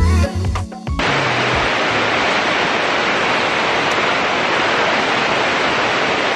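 A music bed that ends about a second in, then the loud, steady rush of whitewater rapids in a mountain river.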